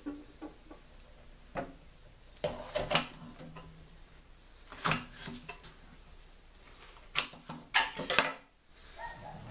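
Kitchen knife cutting a yellow bell pepper on a wooden cutting board: the blade knocks against the board in short, irregular clusters of strokes a few seconds apart, loudest about three seconds in and near the end.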